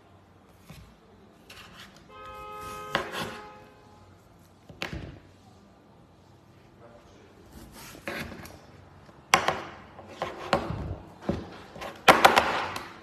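Vegetable peeler scraping skin off a cucumber in a series of short, rough strokes, thickest and loudest near the end, with the peeler knocked down onto the table. A short held tone sounds about two seconds in.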